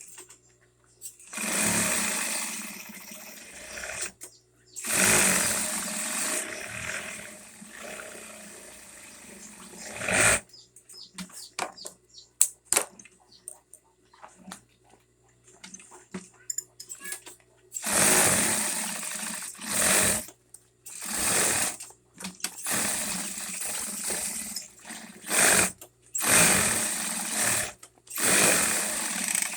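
Straight-stitch sewing machine with a binding attachment sewing binding tape onto the edge of a backpack, running in bursts of a few seconds with pauses between. Through the middle stretch it stops and there are only scattered clicks and handling sounds, before it starts up again in a string of short runs.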